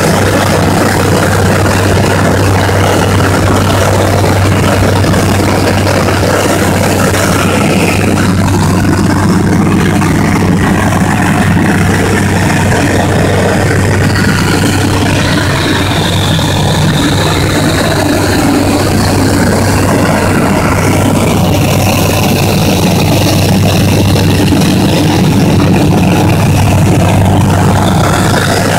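Bristell light aircraft's engine and propeller droning steadily in level flight, heard from inside the cockpit with a strong low hum and airflow noise.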